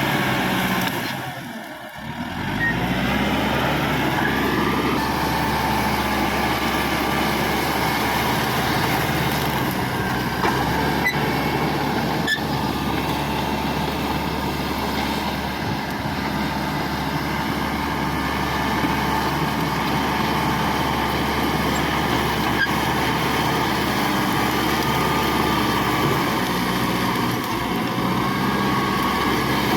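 Caterpillar D5K XL crawler bulldozer's diesel engine running steadily as the machine works. There is a short drop in level about two seconds in.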